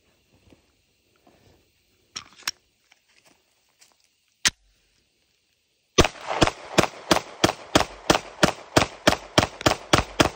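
Glock 17 9mm pistol fired in a rapid string of about fourteen shots, roughly three a second, starting about six seconds in. It cycles cleanly with no stoppage. Before the shots come a few sharp clicks.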